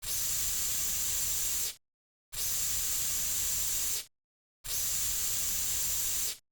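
Narrow-nozzle cockroach insecticide aerosol can spraying in three bursts of about a second and a half to two seconds each, a steady hiss that starts and stops sharply.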